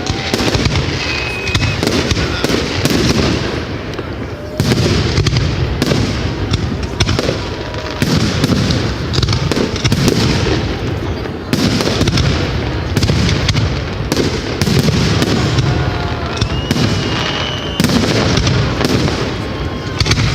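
Fireworks going off in a dense, continuous barrage of bangs and crackles, with fresh volleys every few seconds.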